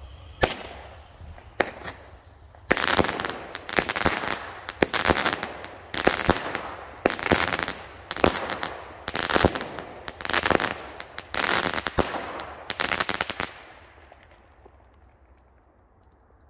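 Cheap consumer firework battery (cake) with crackle effects firing: a few small pops, then about ten shots roughly a second apart, each breaking into a spray of crackling, before it dies away near the end.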